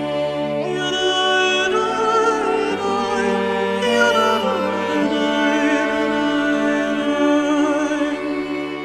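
Background music: a wavering melody with vibrato over long held low notes that change every second or two.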